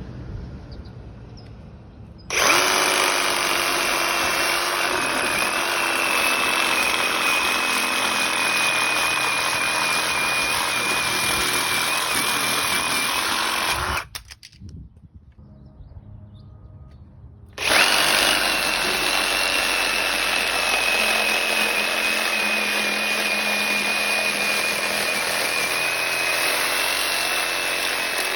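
Ryobi reciprocating saw with a Diablo blade cutting through the copper and aluminum of an AC unit. It starts about two seconds in and runs steadily with a high whine, stops about halfway through for a few seconds, then starts again for a second long cut.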